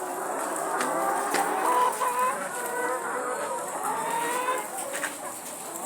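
A flock of laying hens clucking and calling, many birds overlapping, with a few sharp clicks among them.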